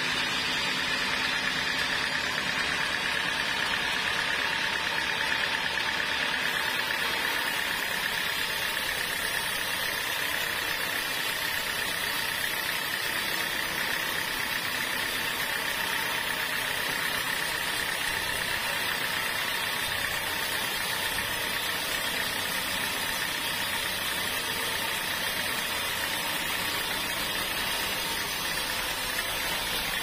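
Band sawmill cutting a teak log: the saw runs steadily as the blade goes through the wood, with a steady high whine over the machine noise.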